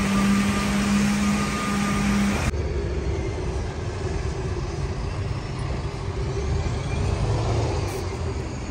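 Bus engines running. A steady, constant-pitched engine hum cuts off abruptly about two and a half seconds in, giving way to a steady low road-traffic rumble.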